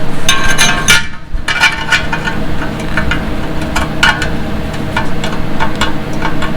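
Hammer tapping a thin steel patch on a motorcycle muffler, shaping it to fit, as a series of irregular metallic clinks about two a second, over a steady low hum.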